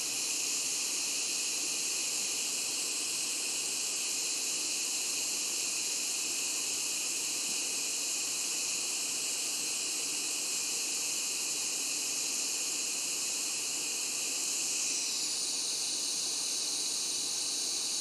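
Steady airflow hiss from a hot-air preheater blowing up from under a circuit board to reflow a connector's solder. The hiss shifts slightly in tone about fifteen seconds in.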